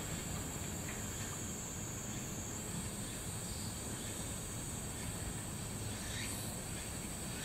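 Steady outdoor background noise with a constant high-pitched trill that shifts slightly higher about two and a half seconds in.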